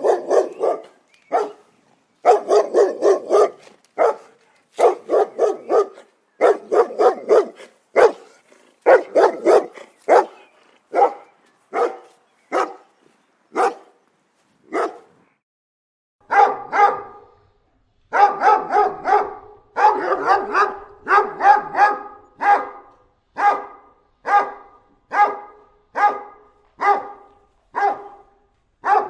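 Dogs barking in quick runs of several barks with short gaps. About halfway through, a higher, more tonal bark takes over, repeating at an even pace of roughly one to two barks a second.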